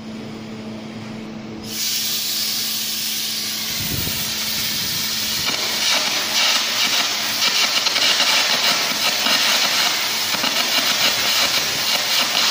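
Air carbon arc gouging on steel plate, cutting a groove in a joint before welding. A low hum comes first, then the compressed-air jet hisses on about two seconds in. Around six seconds in the arc strikes and crackles loudly and rapidly over the hiss.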